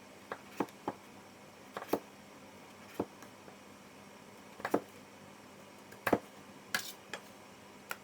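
Knife cutting the skin off slices of pumpkin: the blade chops down through the rind and knocks on the chopping board in irregular sharp knocks, about ten of them.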